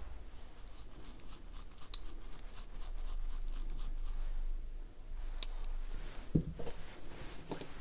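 Small handling sounds of hand tools on a workbench: a few faint clicks and light knocks with some scraping, over a low steady hum.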